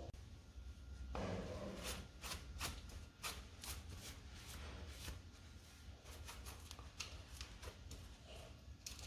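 A dry cloth rubbing and wiping the bicycle's bottom bracket shell: a run of short, irregular scrubbing strokes, faint, clearing out dust and sand.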